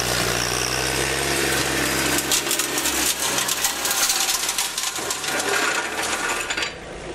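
Compact tractor's engine running with a flail mulcher chopping dry reeds, passing close and then moving away. The engine fades after about three seconds while a dense crackle of sharp clicks from the flails cutting the stalks carries on, dropping off near the end.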